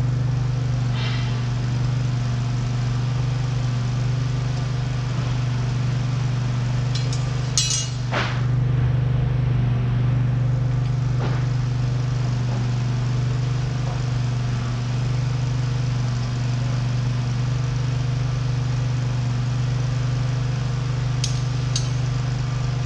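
A steady low machine hum, with a few light metallic clinks from steel hydraulic hard lines being handled: a cluster about eight seconds in and two more near the end.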